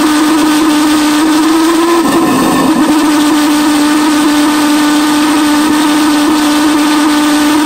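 A homemade Tesla-valve pulse jet engine running with a loud, steady high-pitched buzz from its rapid combustion pulses. The buzz wavers briefly about two seconds in, then holds steady again.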